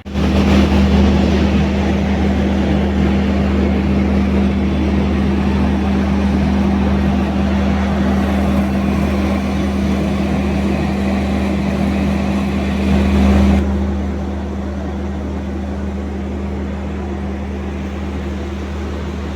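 A train locomotive's engine running steadily close by, a constant low hum under a broad rushing hiss. The hiss drops back and turns duller about fourteen seconds in.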